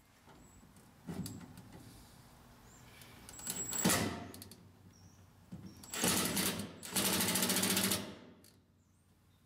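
Electric arc welding on the sheet-steel chip pan and its braces: four short bursts of rapid crackling buzz with pauses between. The last burst, lasting about a second, is the steadiest.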